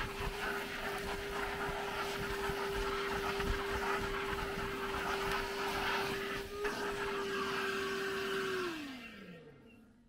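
Milwaukee M12 Fuel brushless wet/dry vacuum running with a steady hum and rush of air as its nozzle sucks debris off a floor mat. Near the end it is switched off and the motor winds down, its hum falling in pitch and fading away.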